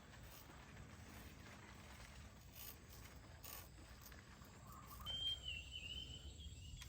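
Quiet outdoor ambience with faint low rumble and a few faint clicks; about five seconds in, a faint high steady note begins and holds.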